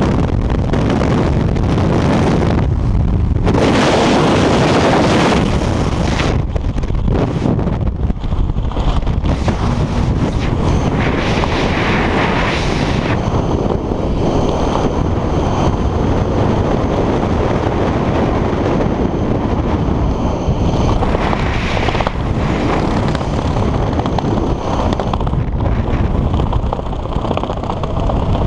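Wind rushing and buffeting over an action camera's microphone during a skydive, through freefall and then under the open parachute canopy. It is loudest about four to six seconds in, then carries on as a steady rush.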